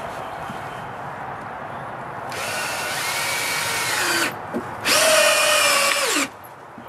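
Power drill driving two deck screws into a wooden stair tread, in two runs of about two seconds and a second and a half, the second louder. The motor's whine drops in pitch at the end of each run as the screw seats snug into the wood.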